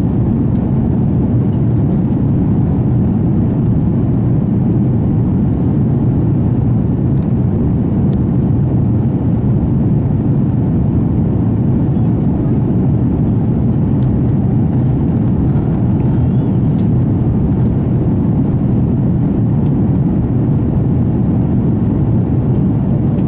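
Steady low rumble of an Airbus A330-200 in flight, engine and airflow noise heard from inside the passenger cabin.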